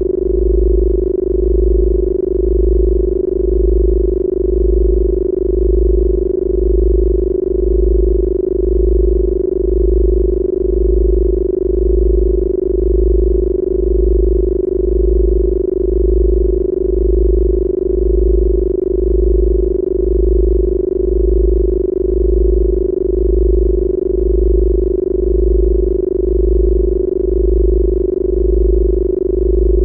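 Electronically generated Rife frequency tones: a steady, unchanging hum in the low-middle range, with a deep low tone pulsing on and off about once a second beneath it.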